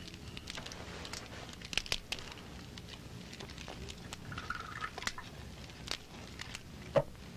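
Small wood fire crackling in a brazier, with scattered little pops over a low hiss and one louder sharp knock near the end.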